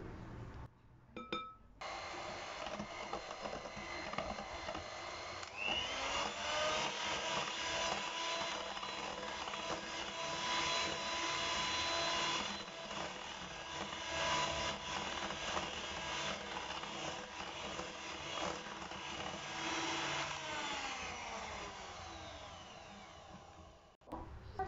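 Electric hand mixer beating batter in a glass bowl. It starts about two seconds in, speeds up with a rising whine around six seconds and runs steadily, then slows with a falling whine and stops just before the end.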